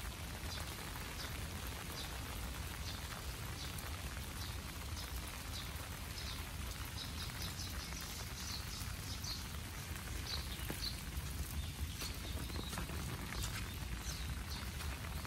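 Steady rain falling on the tree leaves and grass. Short, high-pitched ticks are scattered through it, with a quick run of them about halfway through.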